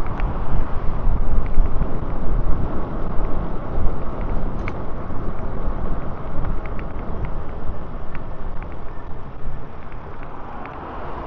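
Wind rumbling on the camera microphone of a moving e-bike, mixed with road traffic. It eases off steadily over the last few seconds as the bike slows.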